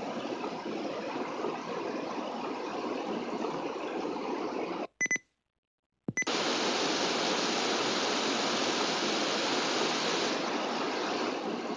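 Steady static hiss that cuts out for about a second near the middle, with a short beep just before and just after the gap.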